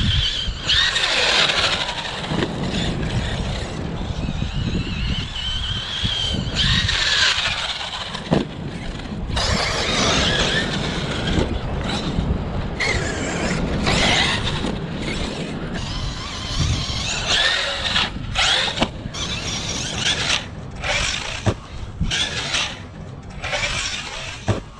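Arrma Kraton V3 6S RC truck's brushless electric motor and drivetrain whining in repeated bursts of throttle, the pitch rising and falling and cutting in and out many times.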